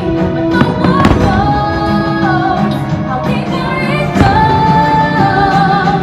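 Fireworks show soundtrack: a pop-style song with a woman singing over an orchestra, with firework bursts booming about a second in and again just after four seconds.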